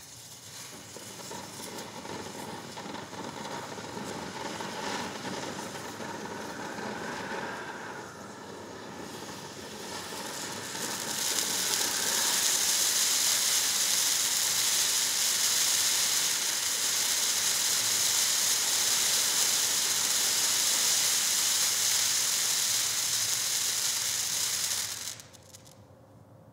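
Black Cat Fish Bowl ground fountain firework spraying sparks with a steady hiss, which grows louder and sharper about eleven seconds in. It cuts off abruptly near the end as the fountain burns out.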